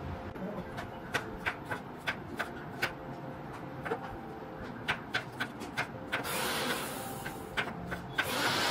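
Chef's knife tapping on a wooden cutting board in irregular sharp clicks, about two or three a second, as mushrooms and garlic cloves are cut. A scraping sound on the board comes in about six seconds in and again near the end.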